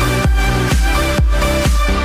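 Electronic dance music with a steady kick drum beat, a little over two beats a second.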